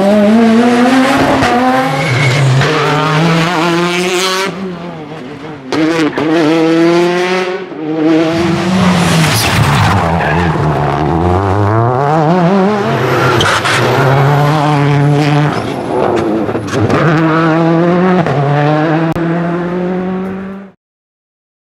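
Rally car engines at full throttle, the pitch climbing through each gear and dropping at every shift and lift-off, as one car leaves the corner and a Peugeot 206 WRC's turbocharged four-cylinder comes through. The sound cuts off abruptly near the end.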